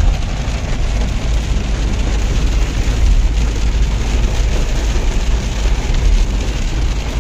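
Heavy rain falling on a car's roof and windscreen, heard from inside the moving car over the steady low rumble of the car driving on the road.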